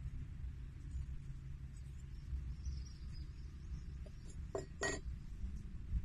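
A steady low rumble on the microphone, and about four and a half seconds in, two quick metallic clinks as two forged steel X-Rhea knives are set down against each other on a wooden log.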